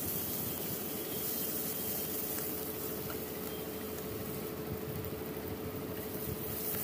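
Onions, tomato and ginger-garlic paste sizzling steadily in hot oil in a kadhai, frying down before the spices go in.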